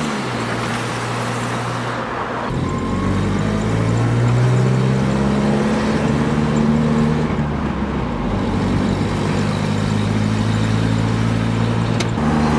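1986 Isuzu P'up pickup's carbureted engine, with a freshly rebuilt Weber 32/36 DGAV carburetor, running steadily while the truck is driven. The engine note jumps up about two and a half seconds in, rises and falls with the throttle, then holds steady.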